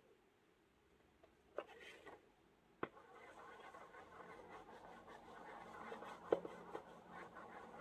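A few light taps and paper handling, then from about three seconds in a steady scratchy rubbing as a plastic baren is rubbed over paper laid on an inked lino block to take a print, with a sharper click a little after six seconds.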